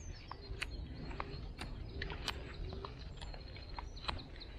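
Knife strokes carving a wooden stick to a point for a tent peg: short, sharp cuts at irregular intervals, about two a second. Birds chirp in the background.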